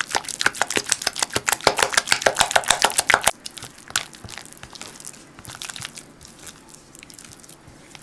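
Cheesecake batter being mixed by hand in a bowl. There are fast, rhythmic scraping strokes that stop about three seconds in, followed by softer, occasional scrapes.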